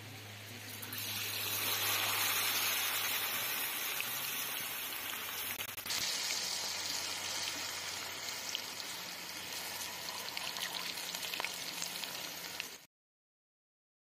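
Potato chips and a tornado potato deep-frying in hot oil: a steady sizzling and bubbling that cuts off suddenly near the end.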